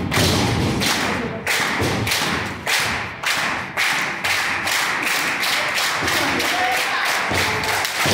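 A quick, fairly even run of thuds and slaps, about three a second, over steady crowd noise in a hall.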